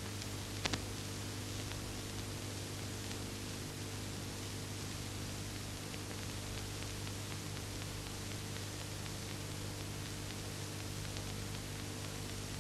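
Steady hiss and hum of an old film soundtrack with no dialogue, with a couple of short clicks under a second in.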